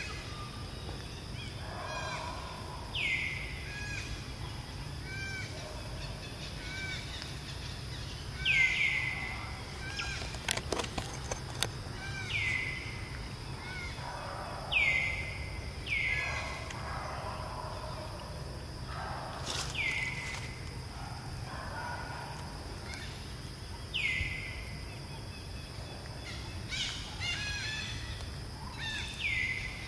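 Birds calling: a short call that drops steeply in pitch repeats every few seconds over softer, repeated chirps. A steady low hum runs underneath, and a few sharp clicks come about ten seconds in.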